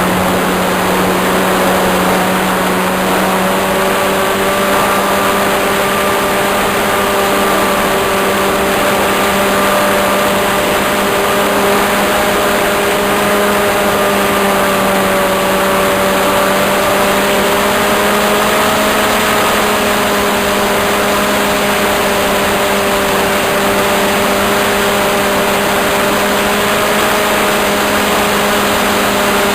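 Radio-controlled model airplane's motor and propeller running at a steady, even pitch, heard from a camera mounted on the plane, under a heavy rush of wind noise.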